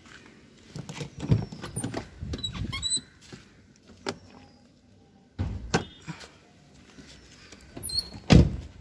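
Clicks and thumps from a Volkswagen Jetta Mk5's door and bonnet release being worked, with footsteps on gravel; one loud thump comes near the end.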